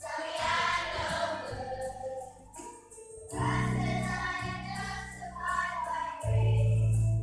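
Children's choir singing over an instrumental accompaniment, with sustained low notes underneath the voices.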